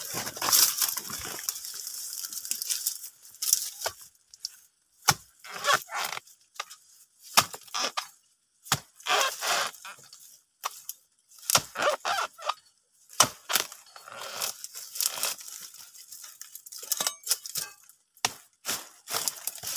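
Irregular sharp cracks, snaps and crunches, often several a second with short pauses between: dry oil palm fronds and stalks being chopped and broken while a fruit bunch is harvested from a young oil palm.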